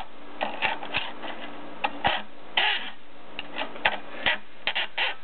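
Irregular clicks and short scrapes of thin metal toy train track being handled and worked with hand tools.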